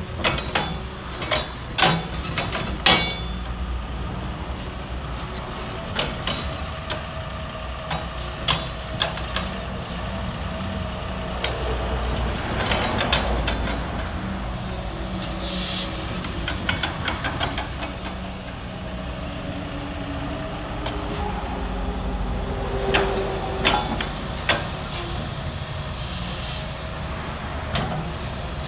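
Caterpillar 320EL tracked excavator running and moving: a steady diesel engine drone with repeated sharp clanks and knocks from the steel tracks and working gear, and a short hiss about fifteen seconds in.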